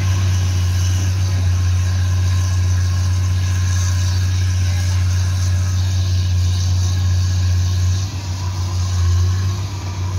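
Hydraulic excavator's diesel engine running steadily with a deep, even hum. It dips briefly about eight seconds in and picks back up about a second later.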